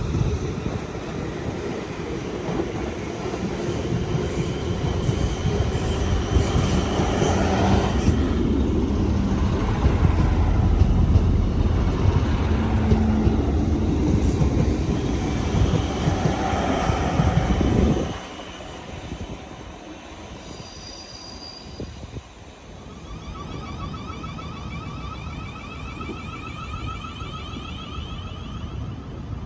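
A train passing close by, its wheels and running noise loud and steady, cutting off abruptly about eighteen seconds in. A much fainter steady sound with a few thin high tones follows.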